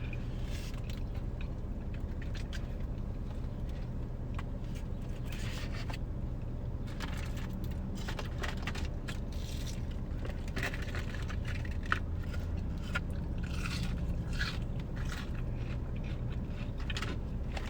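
Close-up mouth sounds of eating crunchy fried onion rings and chicken strips: irregular bites, crunches and chewing over the steady low hum of a car.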